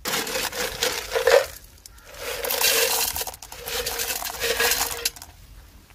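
Crushed-stone coarse aggregate poured from a metal scoop into a metal cylindrical measure, the stones clattering against the metal and the measure ringing. Two pours: one in the first second and a half, the next from about two seconds in to about five.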